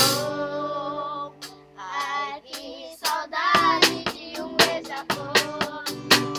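Young voices singing a song together with percussion. The opening line is held on long notes with no drums, and quick drum strokes come back about three seconds in.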